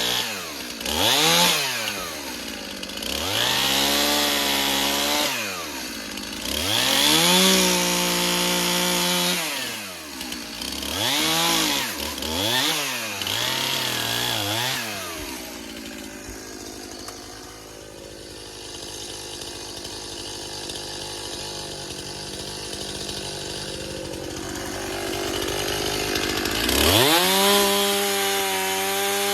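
Stihl MS 291 two-stroke chainsaw cutting branches, revving up under each cut and dropping back about five times in quick succession. It then runs quieter at idle for about ten seconds before revving up again near the end.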